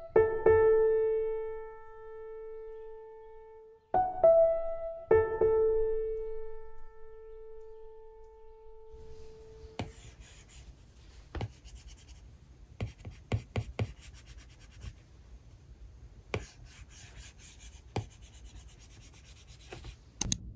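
A few soft piano notes ring out and slowly die away. About ten seconds in, an Apple Pencil's plastic tip starts tapping and sliding on an iPad Pro's glass screen, making scattered sharp clicks over a faint scratchy hiss.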